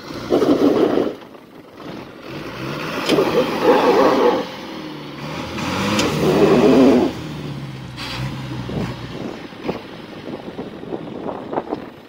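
Off-road 4x4's engine revved hard in three bursts a couple of seconds apart, dropping back between them, then running quieter near the end: the vehicle is struggling for grip in deep snow.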